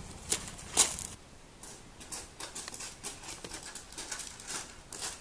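Footsteps crunching on gravel: two loud close steps in the first second, then a quicker, fainter run of steps as two children run across the gravel.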